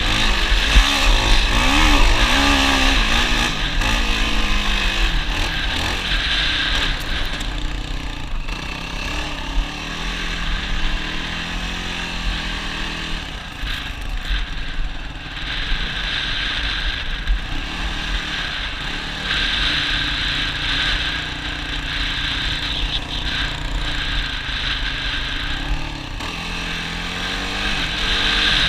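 ATV engine running under way, its pitch rising and falling as the throttle changes.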